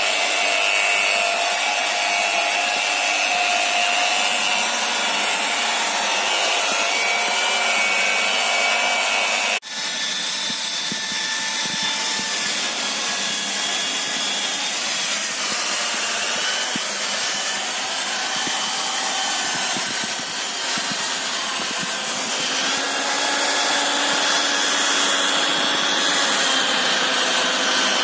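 Handheld electric car polisher running steadily with a high motor whine as its foam pad buffs painted body panels. The sound breaks off for an instant about ten seconds in and resumes at a slightly different pitch.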